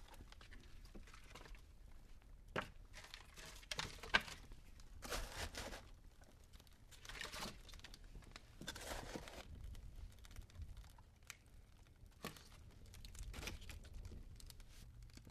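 Dry leaves being crushed and crumpled by hand, in irregular bursts of crackling with scattered sharp snaps between them.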